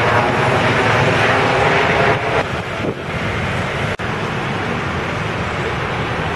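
Floodwater of a swollen river rushing steadily, mixed with wind buffeting the microphone; the hiss is brighter for the first couple of seconds, then evens out.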